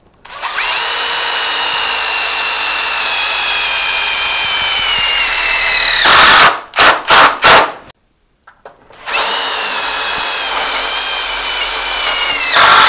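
Cordless drill driving screws into the metal rail of a sheet-metal brake, in two long runs of a few seconds each. Each run's whine drops slightly in pitch and ends in a few short bursts of the trigger as the screw seats.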